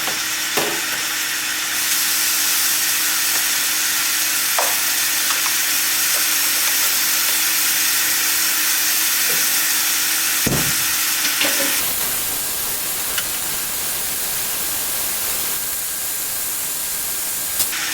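Sliced steak and bell peppers sizzling steadily in a frying pan, with a single knock about ten seconds in.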